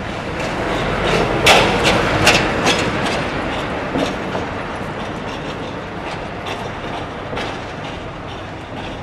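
A glass shop door being worked by its handle and opened, rattling and clacking in a quick cluster about a second and a half in, then a few single clacks later as it swings shut, over a steady background of outdoor noise.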